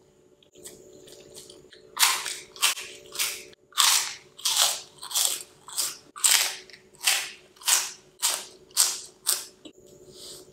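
A person eating forkfuls of instant noodles close to the microphone: wet slurping and open-mouthed smacking chews, about two a second, starting about two seconds in.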